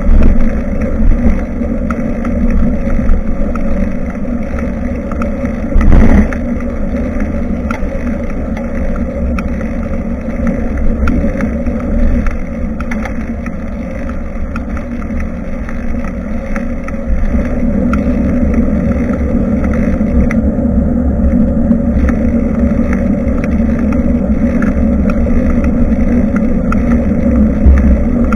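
Steady wind noise buffeting the microphone of a bicycle-mounted camera while riding, mixed with tyre and road noise, with one sharp knock about six seconds in; the noise gets louder about two-thirds of the way through.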